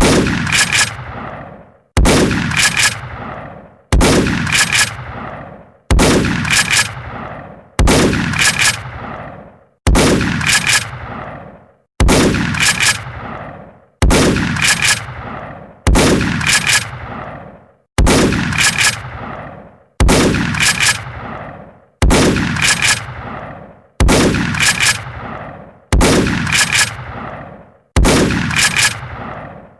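Shotgun shot sound effect, one loud blast repeated about every two seconds, each followed by a couple of quieter clicks and a fading rumble.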